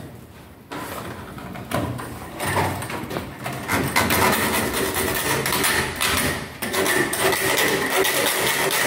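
Plastic diffuser cover of an LED aluminium profile being cut by hand with a cutting tool. A few scattered sounds first, then from about four seconds in a continuous rough cutting noise made of many small crackles.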